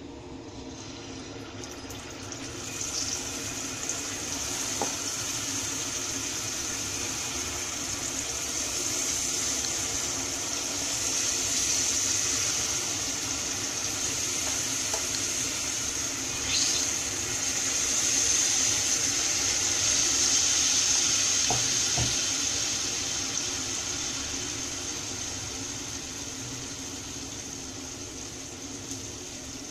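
Ragi unniyappam batter frying in hot coconut oil in the cavities of an unniyappam pan: a steady sizzling hiss. It builds over the first few seconds as batter is ladled in, is loudest in the middle and slowly eases near the end, with a few faint clicks.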